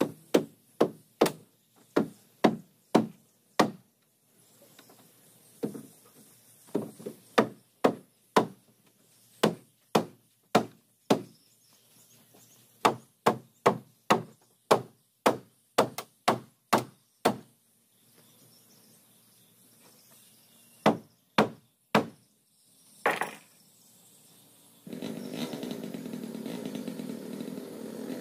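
Hammer blows on a wooden boat hull, about two strikes a second in runs with short pauses, as a wooden strip is fastened along the planking. Near the end a steady engine drone starts up.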